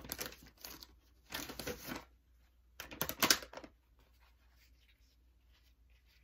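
A baby wipe pulled from its plastic pack and unfolded: three bursts of rustling and crinkling in the first four seconds, the last the loudest, then faint soft rustles.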